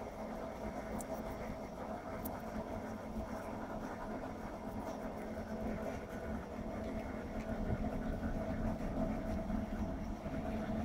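A steady mechanical drone, like an engine or motor running, holding a low hum with a higher tone above it; it grows a little louder after about seven seconds.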